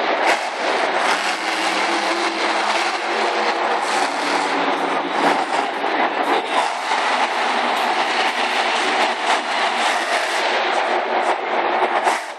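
Monster truck's supercharged V8 engine running hard under throttle in a stadium, a loud continuous roar.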